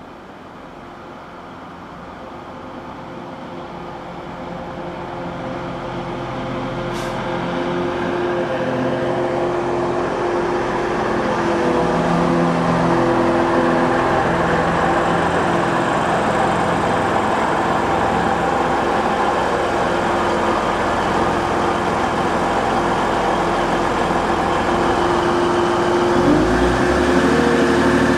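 A Class 185 diesel multiple unit approaching and drawing into the station, its engine and running noise growing steadily louder over about twelve seconds, then running steadily at the platform with a droning engine note. Near the end a low rumble comes in and the engine note rises.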